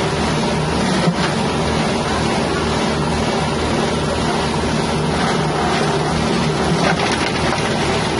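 Grinding machine powered by a 6.5 hp engine, running steadily, with a short knock about a second in.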